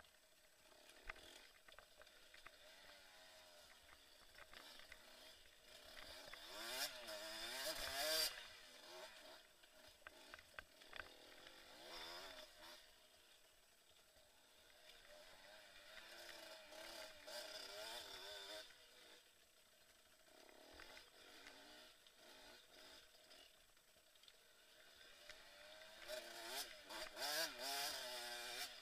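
KTM enduro dirt bike engine revving up and down as it is ridden, its pitch rising and falling with the throttle. The hardest revs come about seven seconds in and again near the end.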